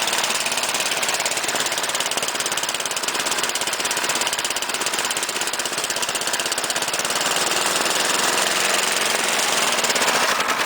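Single-cylinder snowblower engine running steadily at fast idle right after a one-pull cold start.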